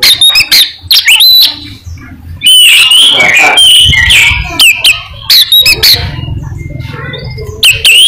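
Oriental magpie-robin (kacer) singing a loud, varied song in quick phrases of rising whistles, slurred notes and sharp clicks, with short pauses between them. A low rumble sits under the song in the second half.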